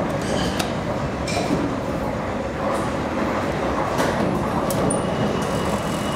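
Steady rumble of a vehicle running on rails, with several sharp metallic clicks and knocks. A faint high whine joins in the second half.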